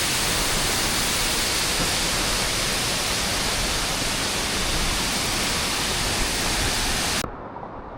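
Steady, even rushing roar of a waterfall close by, which cuts off abruptly near the end.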